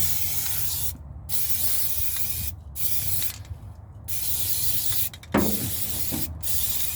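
Aerosol can of primer spray paint hissing in a series of short sprays, about five bursts of a second or so each with brief pauses between, as light coats go on.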